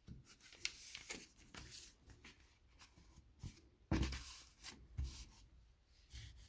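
Hermes 2000 manual typewriter being handled and worked: scattered mechanical clicks and rubbing, with a louder clack about four seconds in and another about a second later.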